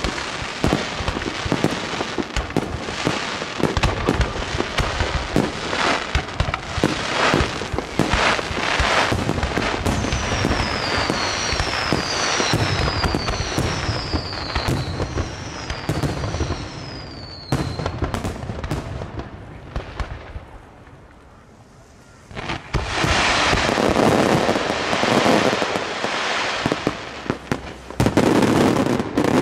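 Aerial firework shells bursting in rapid, dense succession with crackling. In the first half a run of about five falling whistles sounds over the bangs; after a lull about two-thirds of the way through, a fresh barrage of bursts starts.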